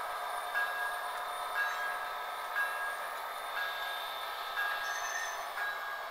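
Model diesel locomotive sound from a Soundtraxx Tsunami decoder in an HO-scale F59PH, running steadily through a small onboard speaker, with a short high tone and a soft click recurring about once a second.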